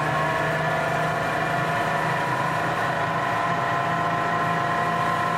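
A bus's engine and drivetrain running, heard from inside the passenger cabin: a steady hum with a whine that slowly rises in pitch.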